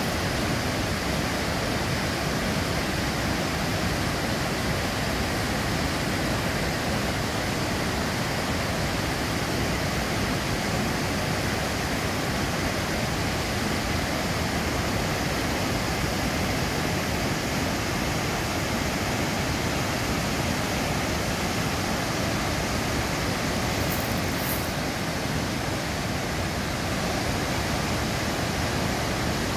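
Bow River white-water rapids rushing, a steady, unbroken noise of fast water.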